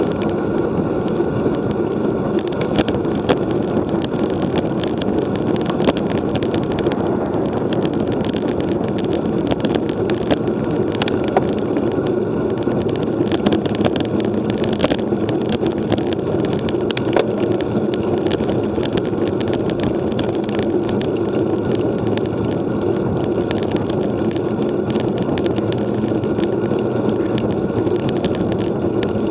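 Road bike ridden at speed, heard on a camera carried by the rider: steady tyre and road noise with wind on the microphone, and frequent small ticks and rattles.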